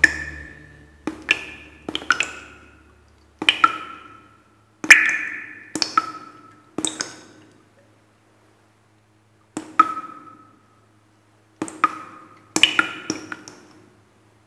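Sparse bright struck notes, each a sharp ping that rings briefly and dies away, coming singly or in quick pairs with pauses between them and one longer silence of about two seconds past the middle.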